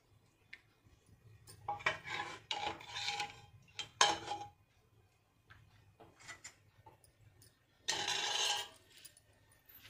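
A metal ladle scraping and clinking against steel dishes while chicken curry is served: a few short scrapes, a sharp clink about four seconds in, and a louder scrape near the end.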